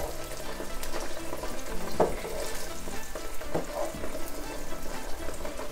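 Pork chops sizzling in a nonstick frying pan with onion and garlic, while a wooden spatula pushes and scrapes the onions around. A couple of louder spatula scrapes come about two seconds in and again a second and a half later.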